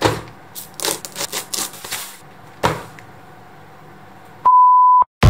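A rapid run of sharp clicks and knocks, then one more a moment later, followed near the end by a single steady high beep about half a second long.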